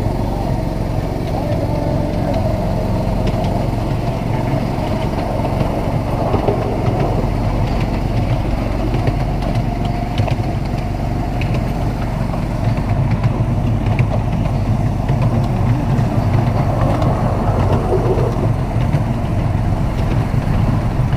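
Miniature railway train running along its track, its small locomotive's engine giving a steady low hum that grows a little louder in the second half.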